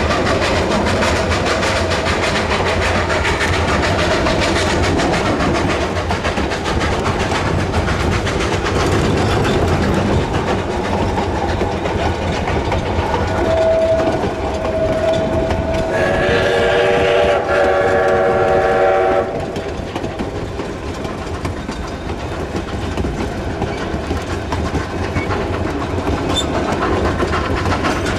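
Narrow-gauge freight train hauled by 2-8-2 steam locomotive No. 481, rolling with a steady rumble and clatter of wheels on the rails. About 13 seconds in, the locomotive's steam whistle sounds, first as a single note and then as a full chord for about three seconds, before cutting off sharply.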